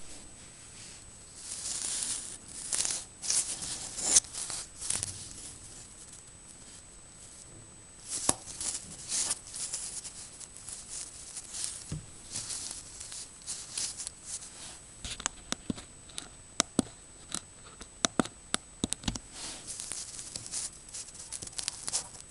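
Rustling and scraping handling noise in bursts, with a quiet spell early on and a run of sharp clicks in the second half, from a stripboard being turned over in the hand close to the microphone. A faint steady high whine sits underneath.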